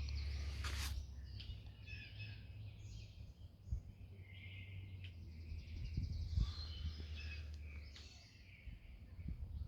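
Several birds chirping and singing, faint, over a steady low hum.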